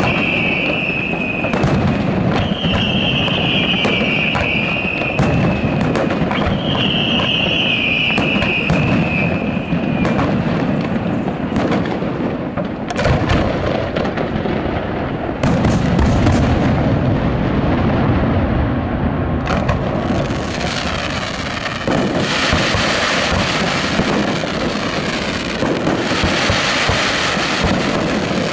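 Aerial fireworks display: a continuous run of shell bursts and sharp reports over a low rumble, with three long falling whistles in the first ten seconds. From about twenty seconds in, a dense hissing crackle of crackling stars dominates.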